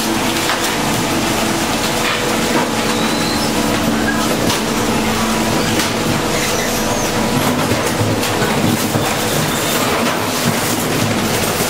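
Industrial refrigerator-recycling machinery running: a loud, steady mechanical clatter with many small knocks over a low hum.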